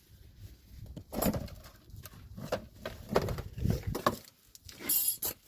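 Irregular clunks and clicks of metal brake parts and hand tools being handled, with a brief metallic rattle about five seconds in.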